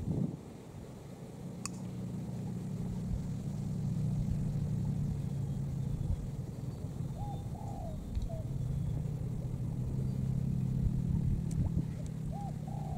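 A motor engine running steadily with a low hum, swelling a few seconds in, easing briefly about two-thirds through and swelling again. A short bump right at the start.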